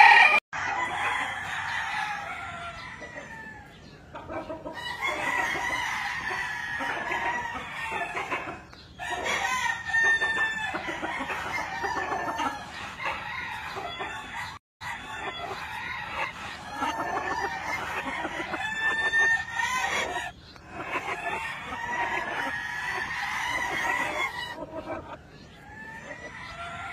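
Many gamecock roosters crowing over one another, with clucking, in stretches broken by brief dips every few seconds.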